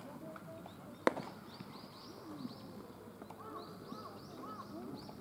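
One sharp pop about a second in, a baseball smacking into a leather glove, over birds calling with repeated short chirps and faint distant voices.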